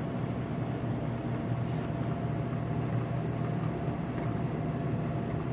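Hot dog roller grill's drive motor humming steadily with a thin steady tone, while the rollers stay stuck and do not turn: the drive is jammed.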